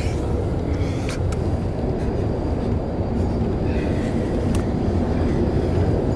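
Steady low rumble of a coach bus's engine and tyres on the road, heard from inside the passenger cabin.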